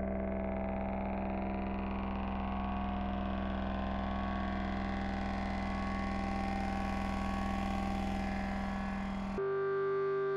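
Electronic drone music: low sustained synthesizer tones layered with higher held notes, growing gradually brighter, then switching suddenly to a new, higher held chord about nine seconds in.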